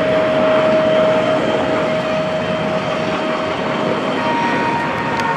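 Turbofan jet noise from L-39C Albatross trainers flying an aerobatic display: a steady, loud rush with a whine in it that shifts to a higher pitch about four seconds in.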